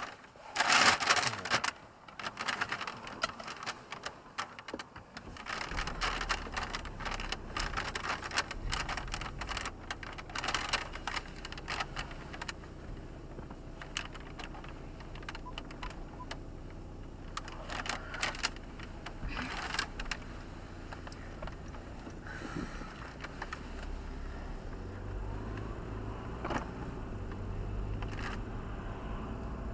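Keys jangling and clicking, loudest in the first couple of seconds, then a car engine's low rumble sets in about five seconds in and runs on under scattered clicks and rattles.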